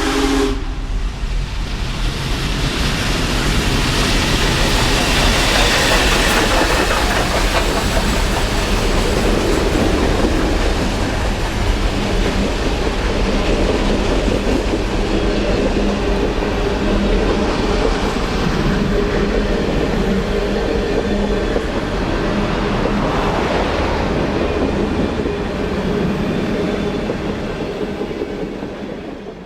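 Union Pacific Big Boy No. 4014, a huge 4-8-8-4 articulated steam locomotive, passing with its train: a loud, dense, steady rumble. The whistle's chord cuts off about half a second in, and the sound fades out near the end.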